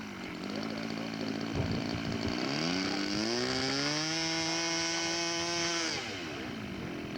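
Engine of a radio-controlled scale model Corsair idling, then throttled up about two seconds in to a steady high-pitched run, and throttled back down to idle about six seconds in.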